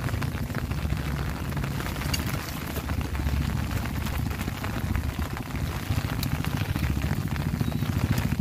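Steady rain pattering, with a low, unsteady rumble underneath.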